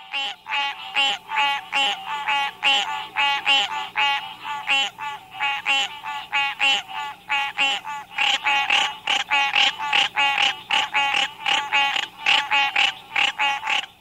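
Green treefrog (Hyla cinerea) calling: a fast series of short, pitched honks, about three a second, each with one steady pitch.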